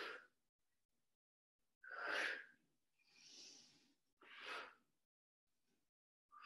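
A woman's forceful exhales, one with each twist of a seated row-and-twist exercise, coming about every two seconds, with a fainter breath between two of them.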